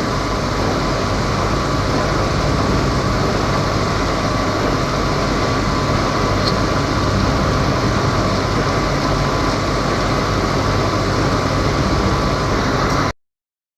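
Metal lathe running steadily, a constant mechanical hum with a steady whine; it cuts off suddenly near the end.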